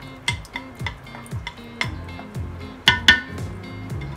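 Background music with a steady, deep beat. About three seconds in come two sharp clinks of a bowl against a steel pot.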